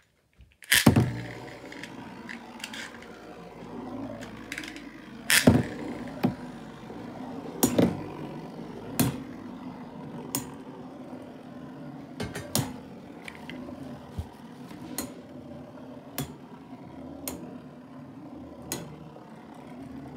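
Two Beyblade Metal Fusion spinning tops, Flame Libra and L-Drago Destructor, launched about a second in onto a plastic tub lid. They spin with a steady whirring hum, and their metal wheels clack sharply against each other about every second or so.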